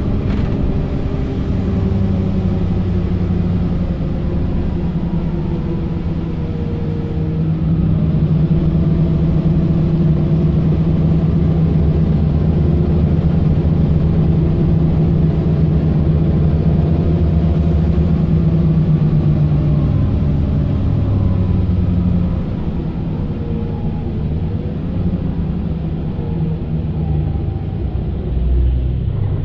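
Mercedes-Benz Citaro O530 LE bus's 12-litre OM457 hLA diesel engine running as the bus drives, heard inside the passenger cabin. The engine note climbs a few seconds in, holds steady for a long stretch, then drops back about two-thirds of the way through.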